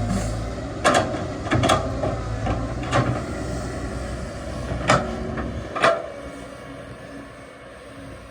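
Excavator engine running steadily, with half a dozen sharp knocks from the machine at work. After about six seconds the engine note drops and everything gets quieter.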